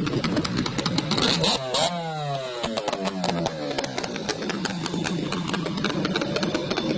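Small petrol engine of a homemade mini boat running. About two seconds in its pitch drops as it slows, then it runs on steadily at a lower speed.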